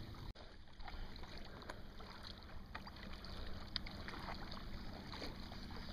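Sea kayaks gliding over calm water: faint paddle splashes and drips, with a low rumble underneath.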